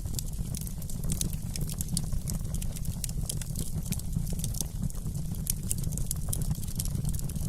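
Wood fire crackling in a fireplace: many small, sharp, irregular crackles over a steady low rumble of the flames.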